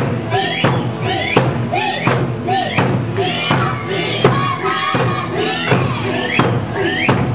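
Large Okinawan barrel drum (ōdaiko) struck hard with a stick, a heavy hit every second or so, in time with Okinawan-style music carrying a singing voice.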